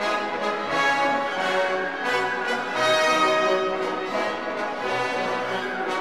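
Orchestral background music with brass, playing long held chords.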